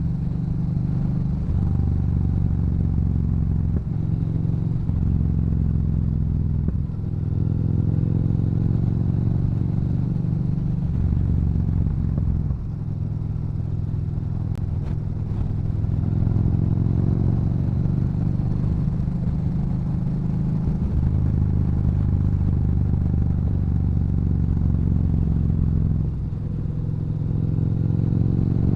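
Yamaha Bolt's air-cooled V-twin, breathing through a Cobra aftermarket exhaust, running under way on the road. Its note steps up and down several times as the rider works the throttle and gears.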